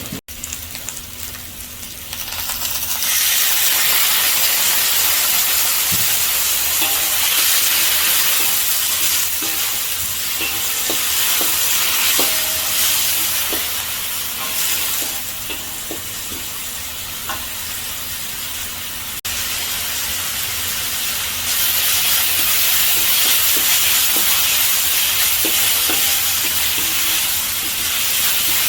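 Vegetables stir-frying in oil in a pan: a steady sizzle, louder from about three seconds in, with light scrapes and taps of a spatula as they are stirred.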